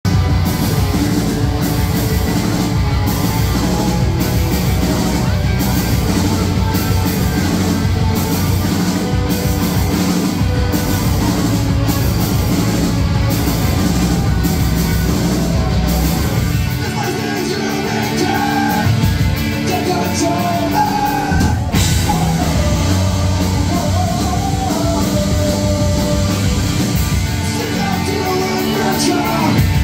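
Live rock band playing loud: electric guitars, bass guitar and a drum kit, with a singer coming in about halfway through as the bass and drums briefly drop back.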